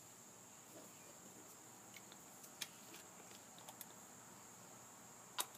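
Near-silent room tone with a faint steady high-pitched whine, broken by a few small clicks and taps from paint being mixed with a brush, the loudest about five seconds in.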